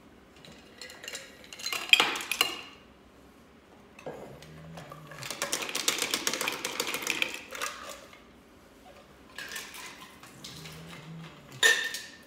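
Ice cubes clattering into a drinking glass, with a few separate clinks of glassware set down before and after. The busiest rattle comes in the middle and lasts about three seconds.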